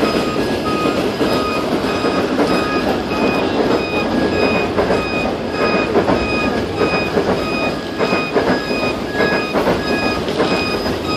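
A fire engine's diesel engine running as the pumper pulls away, a loud steady rumble. A short, high electronic beep repeats about twice a second over it.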